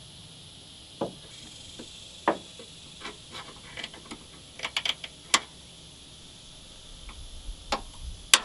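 Irregular small metallic clicks and taps of a flathead screwdriver prying at the bottom end fitting of a gas hood lift strut to pop its retaining tabs, with a sharper click near the end. A steady high chirring of insects runs underneath.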